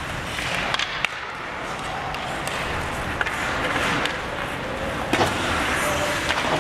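Ice hockey skates scraping and carving on the ice during play, with several sharp clacks of sticks hitting the puck, in a large, mostly empty arena.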